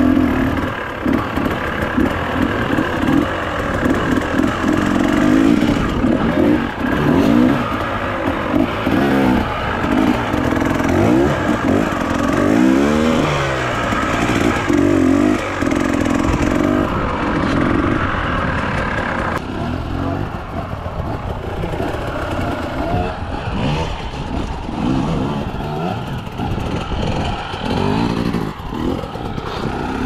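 Enduro dirt bike engine running under the rider, its revs rising and falling with the throttle over rough trail, with the bike rattling over bumps. About twenty seconds in the revs drop away to a lower, quieter running.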